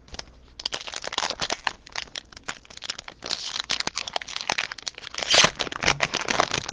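A trading-card pack's plastic wrapper crinkling as it is torn open and handled, with a run of small crackles that is loudest about five and a half seconds in.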